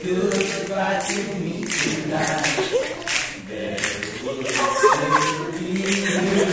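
Young male voices singing a cappella, with hand claps keeping a steady beat roughly every two-thirds of a second.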